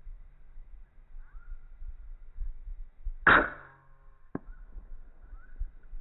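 An air rifle shot about three seconds in: one sharp crack that dies away over about half a second, followed about a second later by a short, sharp click.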